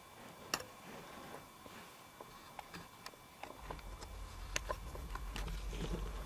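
Scattered sharp clicks and taps, growing more frequent, turning into footsteps. A low rumble comes in about three and a half seconds in, over a faint steady high whine.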